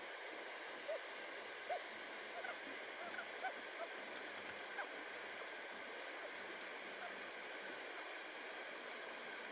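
Faint steady rush of flowing water, with a handful of short, quick high blips in the first half.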